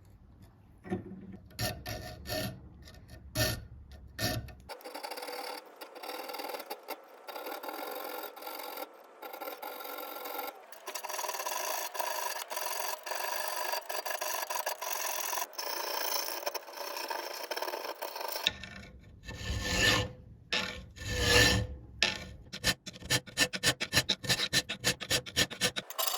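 Hand file or similar hand tool rasping on steel in repeated strokes: uneven at first, then a steadier scrape, with quick, even strokes near the end.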